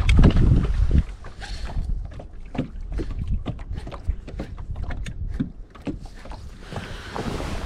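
Wind buffeting the microphone for about the first second, then irregular small knocks and clicks on a fishing boat, with wind hiss rising again near the end.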